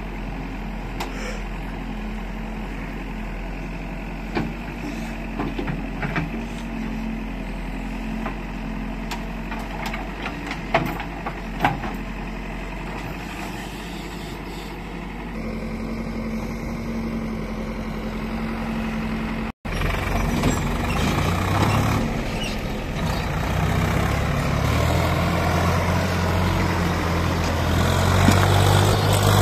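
Diesel engines of a backhoe loader and a Swaraj 744 XT tractor running steadily while the backhoe digs, with a few sharp knocks. After a cut about two-thirds through, the tractor's engine gets louder as it pulls a loaded trolley of soil.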